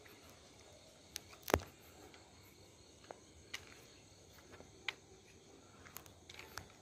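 Quiet night-time outdoor ambience with faint insect chirring, broken by a few irregular short clicks and taps, the loudest about one and a half seconds in.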